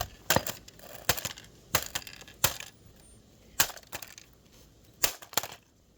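A Rubik's cube being knocked about: about eight sharp clacks of hard plastic, irregularly spaced.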